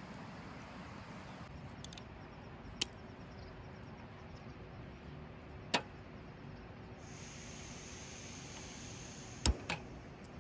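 A steady rushing noise broken by four sharp clicks or knocks, the last two close together near the end. A steady high-pitched tone joins about two-thirds of the way through.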